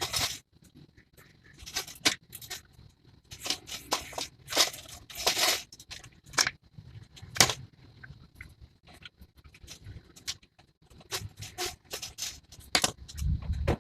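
Irregular clicks, knocks and scraping rustles of hard objects being handled, with a dull low bump near the end.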